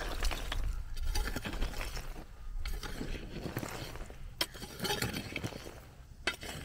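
A long-handled hoe scraping and chopping into dry, stony soil: irregular scrapes with the clink of small stones and a few sharper strikes.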